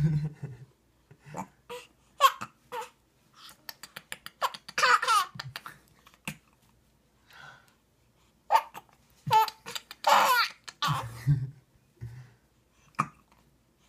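Baby giggling and babbling in short bursts, loudest about five seconds in and again around ten seconds in, with a few short sharp sounds in between.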